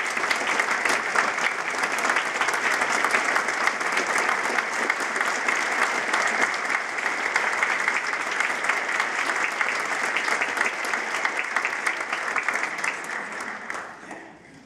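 Audience applause: many hands clapping steadily, then dying away over the last second or two.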